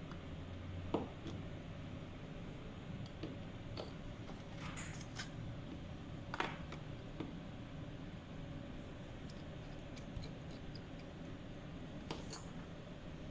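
Sparse small clicks and taps from hand tools and a wristwatch being handled during strap adjustment and battery work. There is a sharp tick about a second in, a cluster midway, and a pair near the end, over a steady low hiss.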